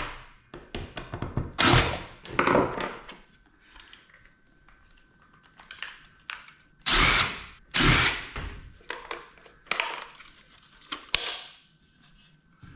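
Cordless drill-driver run in short bursts, about ten in all, while screws are backed out of a metal case, with a sharp click near the end.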